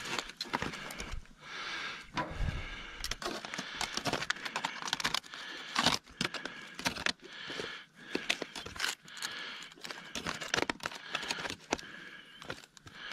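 Aluminium foil crinkling and rustling as a hot foil packet is held open and handled, with many short clicks from metal barbecue tongs.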